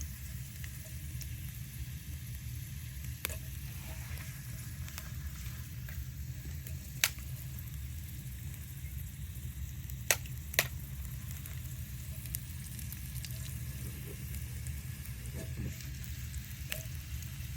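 Wood bonfire burning with a steady hiss and a handful of sharp crackling pops; the loudest pops come about seven seconds in and twice close together around ten seconds in.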